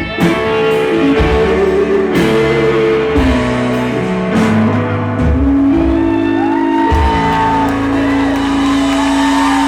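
Live rock band playing the closing bars of a song, with electric guitars and drum hits, settling about six seconds in into one long held chord.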